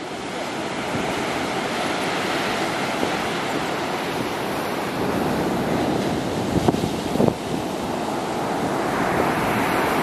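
Storm surf from typhoon-driven waves breaking and washing up a sandy beach: a steady, heavy rushing sound, with two brief louder bumps about seven seconds in.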